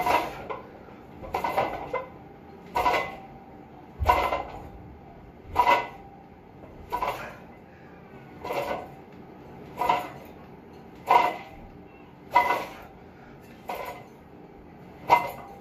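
Weight plates and a loaded steel bar clanking with each rep of a seated overhead press: a short metallic clank about every second and a half, a dozen times in a row.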